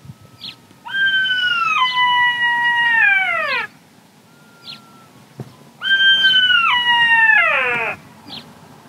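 Black-backed jackal howling: two long calls, each held on a high note, then stepping down and ending in a falling glide. The jackal is calling to another jackal far away.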